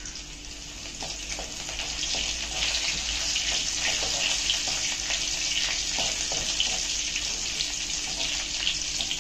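Chopped garlic, green chillies and cumin sizzling in hot oil in a kadai, stirred with a perforated metal ladle that scrapes lightly now and then. The sizzle grows louder over the first two seconds.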